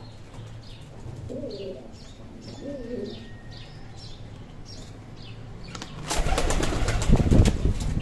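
Domestic pigeons cooing softly twice, low and faint. About six seconds in comes a loud rustling, clattering flurry lasting about two seconds.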